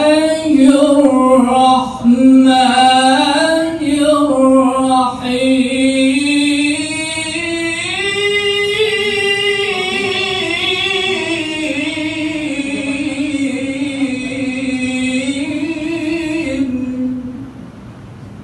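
A single voice chanting one long unbroken melodic line, the pitch wavering slowly and ornamented, rising about halfway through and falling away shortly before the end.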